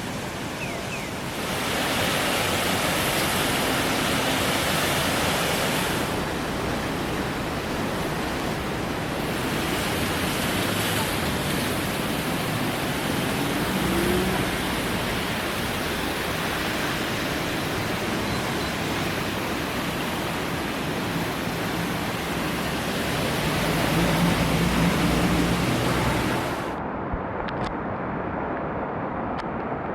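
A swollen, muddy river in flood, its water rushing steadily. The rush shifts in level and brightness a few times, and near the end the high hiss drops away, leaving a duller low rush.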